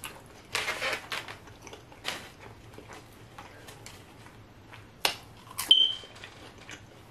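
Close-up crunchy bites and chewing of a fried pork egg roll (lumpia). About five seconds in come two sharp clicks and then a short high beep.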